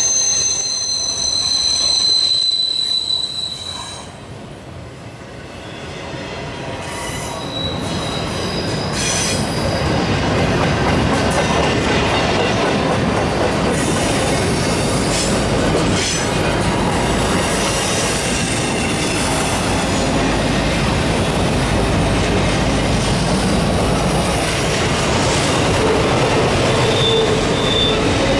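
Intermodal freight train's well cars rolling past on a curve. Their wheels squeal in high steady tones for the first few seconds, then the sound becomes a steady, building rumble and clatter of steel wheels on rail, with a brief faint squeal again near the end.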